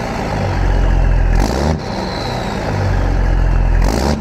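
Peterbilt 389's Cat C15 diesel engine revving hard in long surges, two loud pulls of about a second each with an easing between them, over-fuelled to roll coal.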